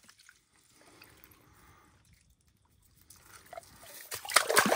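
Water dripping and splashing, faint at first, then building to a loud burst of splashing in the last second that cuts off abruptly.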